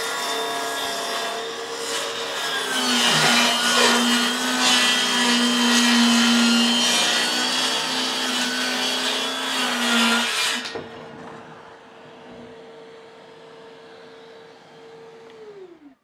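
Hilti Nuron 7¼-inch cordless circular saw cutting through plywood for about ten seconds, with a Hilti VC 75-1-22 cordless vacuum pulling the dust through a hose on the saw's port. Once the cut ends a quieter steady motor hum runs on for a few seconds, then winds down just before the end.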